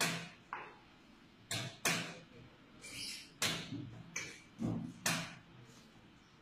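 Chess pieces being set down hard on the board and the chess clock's buttons being slapped in a fast game, about eight sharp clacks in six seconds, several in quick pairs.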